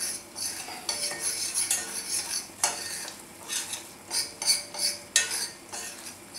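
A metal spoon stirring and scraping a thick roux of lard and flour around a stainless steel pot in repeated short strokes, with now and then a sharp click of the spoon against the pot.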